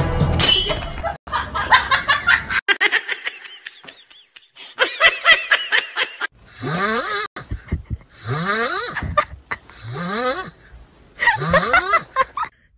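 A person laughing in repeated breathy bursts, building to four long fits of laughter in the second half.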